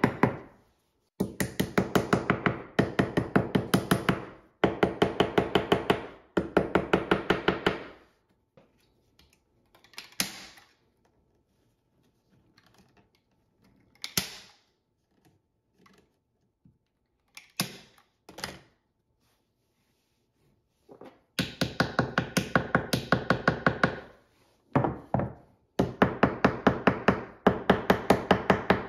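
Runs of rapid, even clicking, each a few seconds long, come about four times and are the loudest sound. In between, a few single sharp snaps come from a hand staple gun driving staples through canvas fabric into the wooden frame.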